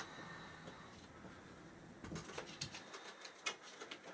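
Faint handling noise of foam weather stripping being pulled off a window air conditioner, with scattered light clicks and crackles and one sharper click near the end.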